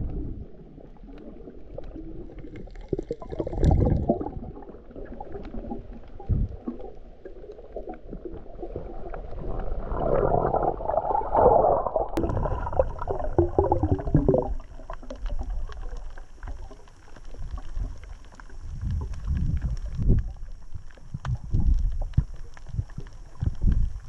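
Muffled water noise picked up by a camera held underwater: irregular low rumbling and gurgling from water moving around the housing, swelling louder about the middle. A faint steady high tone comes in about halfway through.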